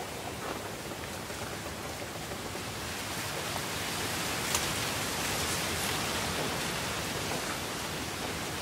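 Steady outdoor ambience: an even hiss with no distinct events or voices, growing a little louder about halfway through, with a single soft tick about four and a half seconds in.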